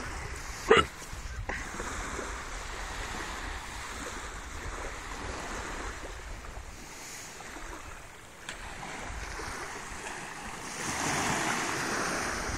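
Small waves washing onto a sandy beach, with wind rumbling on the microphone; the wash grows louder near the end. A brief voice sound about a second in.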